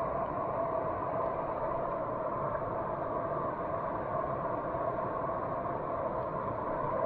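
Mountain torrent rushing over rocks: a steady, even rush of fast-flowing water.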